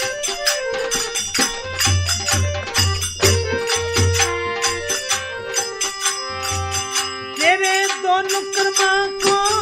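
Instrumental interlude of a Rajasthani devotional bhajan: a steady folk beat of low drum strokes under constant jingling percussion, with held melody notes above. Near the end a wavering, bending melodic line comes in.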